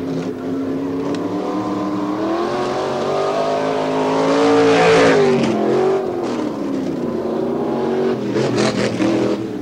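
V8 off-road race car with open headers accelerating and passing close by. Its engine note rises to a peak about five seconds in, then drops in pitch as it moves away, with a short patch of crackling near the end.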